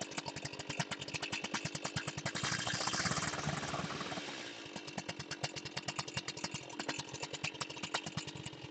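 Two-stroke chainsaw idling with an even putter, revved briefly about two and a half seconds in as the tip of its bar cuts into a wooden plank, then dropping back to idle.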